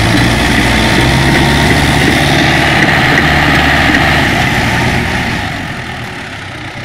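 Heavy vehicle engine running steadily, its level dropping off about five seconds in as it moves away or throttles down.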